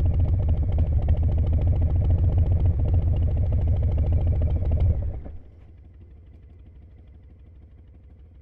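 Harley-Davidson V-twin motorcycle engine running with a dense, even low pulse. About five seconds in it drops suddenly to a much fainter level and carries on quietly.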